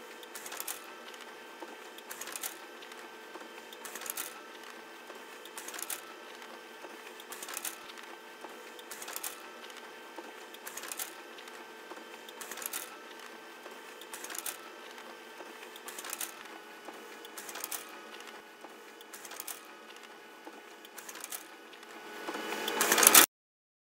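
Colour photocopier running, a steady hum with a sharp sweep repeating about every second and a half as copies cycle through. It swells louder near the end and then cuts off abruptly.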